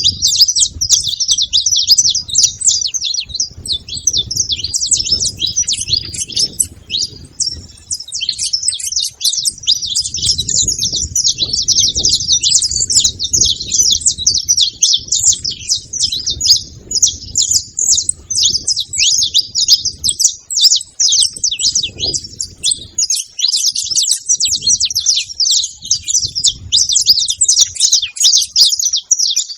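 Saffron finch chirping and singing without pause, a rapid stream of short, high notes, over a faint low rumble.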